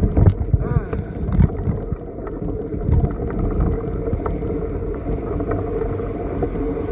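Bicycle pedicab bumping along a rough dirt track, with irregular low thumps and rattles over a steady hum.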